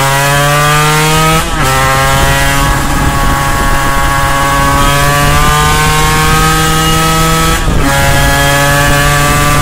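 1993 Suzuki RGV250 VJ22's two-stroke V-twin, rejetted and fitted with TYGA, VHM and Vertex performance parts, pulling under acceleration. It shifts up twice, about a second and a half in and again about eight seconds in; the pitch drops at each shift and then climbs slowly again.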